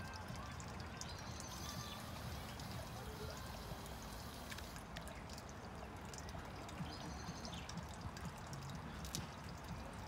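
Steady trickle of running water.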